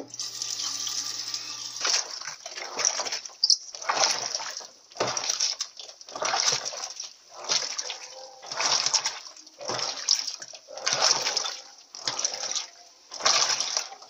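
Electrolux Silent Control 16 kg top-loading washer agitating a load of sneakers in low, soapy water. It starts with a low steady hum for about two seconds, then the water sloshes and churns in regular surges roughly every second as the agitator swings back and forth.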